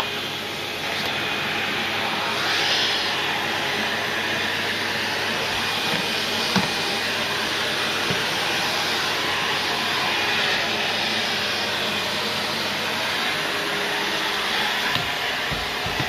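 TASKI Vento 8 commercial vacuum cleaner running steadily as its floor tool is pushed over a rug and onto a laminate floor. A light knock about six and a half seconds in.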